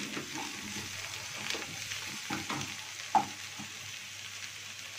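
Puréed chard and green coriander sizzling in ghee in a frying pan, with a wooden spatula scraping and clicking against the pan as it is stirred. There is one louder knock about three seconds in, and the strokes thin out after it while the sizzle goes on.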